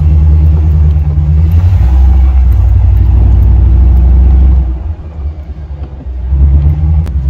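A Jeep's engine and drivetrain running as it drives over sand, a steady low drone heard from inside the cab. The drone drops off about four and a half seconds in and picks up again near the end.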